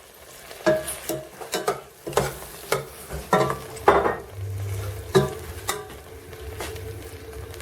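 A utensil knocking and clinking against a saucepan of simmering stewed apples, in irregular strikes about every half second, over a faint sizzle from the pan.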